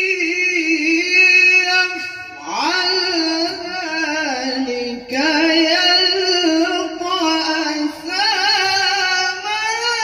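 Male qari reciting the Qur'an in the melodic tilawah style. He holds long, ornamented notes that wind up and down in pitch, with short breaks for breath about two, five and eight seconds in.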